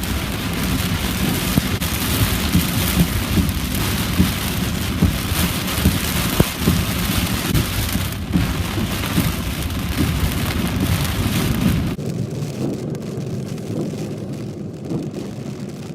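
Heavy rain pelting a car while it drives, over a steady low road rumble. About twelve seconds in, the hiss of the rain cuts off suddenly, leaving mostly the low rumble.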